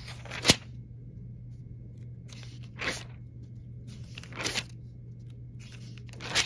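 Thin phone book pages being turned by hand, four rustling page flips a second or two apart, the first one the sharpest and loudest. A steady low hum runs underneath.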